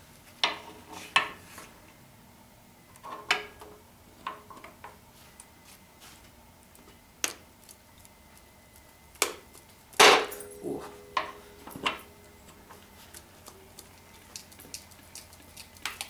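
Steel crowbar clanking against a BMW N54 engine block as it is worked at the bedplate seam, which is stuck fast with sealant. About ten irregular metallic knocks come at uneven gaps, some ringing briefly. The loudest comes about ten seconds in.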